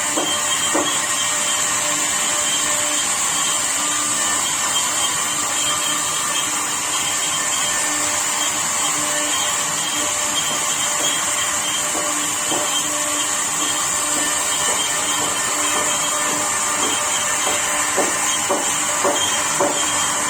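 CNC router spindle running with a steady high whine as a 6 mm bit carves a design into wood, with a few short knocks near the start and near the end.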